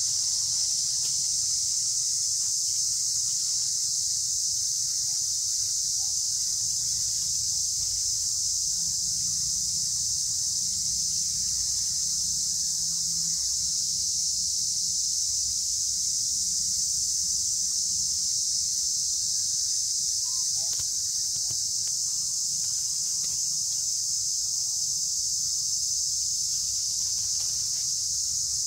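A steady, high-pitched chorus of insects, an unbroken shrill drone.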